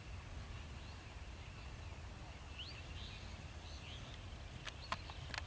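Faint outdoor ambience: a steady low rumble with scattered bird chirps over it, and a few sharp clicks near the end.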